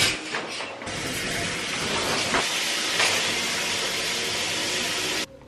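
Shower running: a steady hiss of water spraying, which cuts off suddenly near the end.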